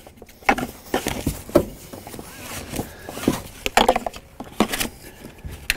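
A car's lap-shoulder seatbelt being threaded through a plastic infant car seat base and buckled: irregular clicks, knocks and rustles of belt webbing, metal latch plate and plastic.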